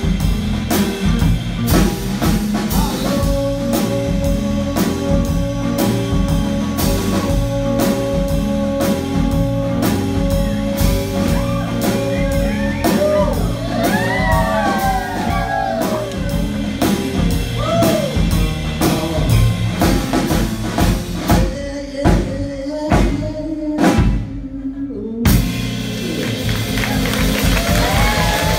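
Live blues band playing: drum kit, electric bass and electric guitar, with a lead line that holds one long high note and then bends up and down in pitch. Late on the band plays a few short stop hits with brief gaps, then comes back in full.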